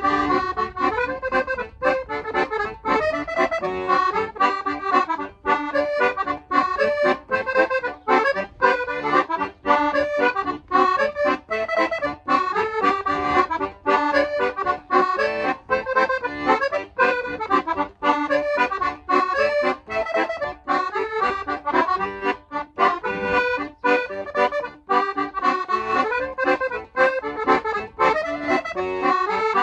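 Piano accordion playing a quick Scottish dance tune, a run of fast melody notes over a steady beat from the left-hand bass and chords.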